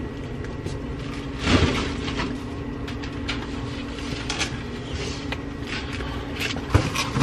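Plastic food bags rustling and crinkling as they are handled at an open refrigerator, with a few light knocks. A steady low hum runs underneath.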